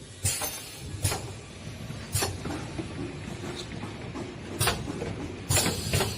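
Intercell welding machine for lead-acid batteries working through its cycle: about six short, sharp bursts of noise at uneven intervals over a low mechanical background. Two of the bursts come close together near the end.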